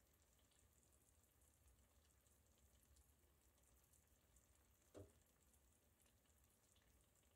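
Near silence: faint room tone, with one short soft knock about five seconds in.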